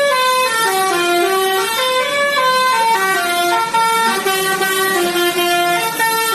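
Indian truck musical horn playing a tune: a quick, unbroken run of notes stepping up and down in pitch.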